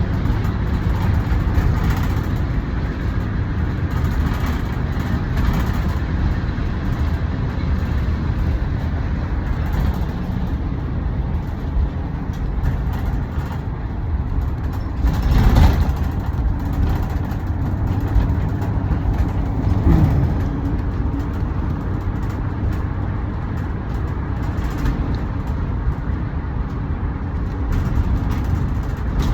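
Road traffic passing: a steady rumble of cars and trucks, with one vehicle going by louder about halfway through and an engine pitch rising as a vehicle speeds up about two-thirds of the way in.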